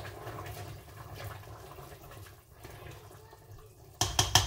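Chicken gravy bubbling in a steel pot while a spoon stirs it, with faint scraping ticks. About four seconds in, a quick cluster of sharp metallic clinks as the steel lid is set back on the pot.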